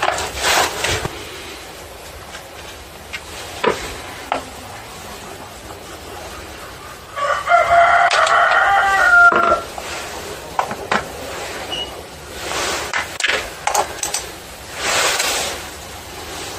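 A rooster crows once, a call of about two seconds with a falling end, about seven seconds in. Around it come scattered clicks and rustles from hands taking the cover, bar and chain off a chainsaw.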